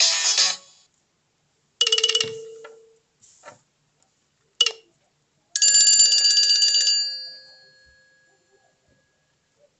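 Nokia 300 phone alert tones played one after another with silence between: a short electronic chime about two seconds in, a tiny blip near five seconds, then a longer bright ringing tone that fades out.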